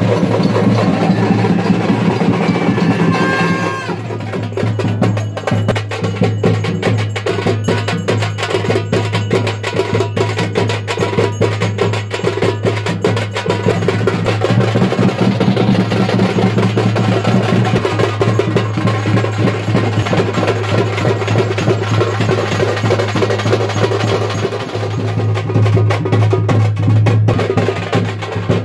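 Fast percussion music: dense, rapid drumbeats with sharp clacking strokes over a steady low tone.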